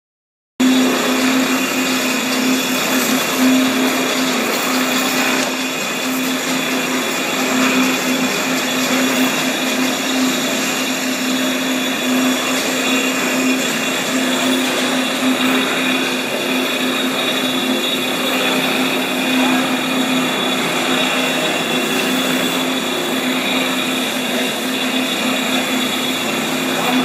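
Blastrac BG-250 electric floor grinder running steadily while it grinds a resin coating off a concrete floor, a loud, even grinding noise over a constant low motor hum. The sound cuts in abruptly about half a second in.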